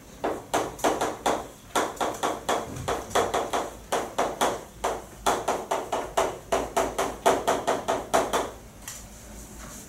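Chalk tapping and scraping on a chalkboard as words are written: a quick run of sharp strokes, several a second, that stops near the end.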